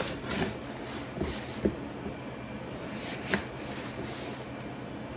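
Packaging being handled: a few scattered light knocks and rustles, as of a cardboard box being picked up and turned over.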